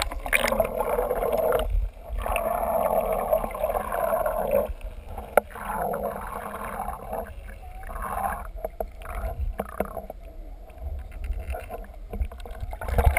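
Water and wind noise from a whale-watching boat, with a steady low rumble underneath. It is louder in the first five seconds and quieter after.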